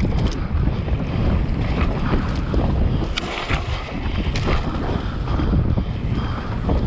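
Wind rushing over the camera microphone as a mountain bike rides fast down a dirt singletrack, with the bike's rattles and knocks over the trail, a cluster of sharp clacks about three seconds in.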